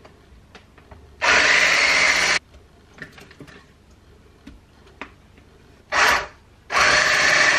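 Electric stick blender with a whisk attachment whirring in short bursts as it whisks a thick cream-cheese cheesecake filling: a run of just over a second about a second in, a brief blip around six seconds, then a steady run from just before seven seconds on. Faint clicks come between the bursts.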